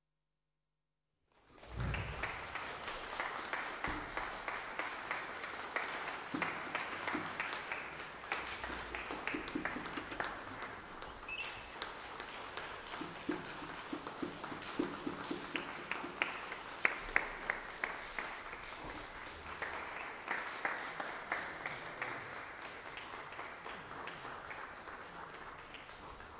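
Audience applauding, starting suddenly about a second in and slowly dying down near the end.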